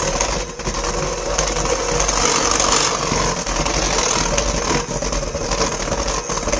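Electric hand mixer running steadily, its beaters churning thick cake batter of flour, milk and butter in a stainless steel bowl.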